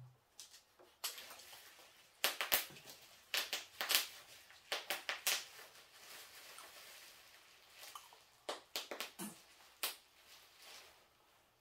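Painting materials being handled: short clicks, taps and scrapes in small clusters, the busiest stretch about two to five seconds in and another near nine seconds.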